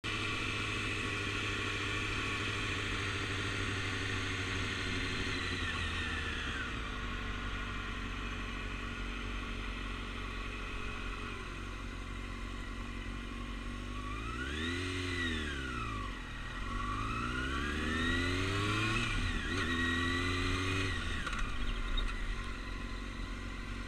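A 600 cc motorcycle engine running as the bike rides. It holds steady at first and drops off about a quarter of the way in. It revs up and down quickly about two-thirds in, then climbs in pitch again and falls away near the end.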